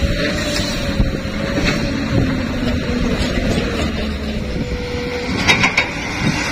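Diesel engine of a loaded dump truck running steadily as the truck drives along a dirt road, with a wavering hum. A few sharp knocks come near the end.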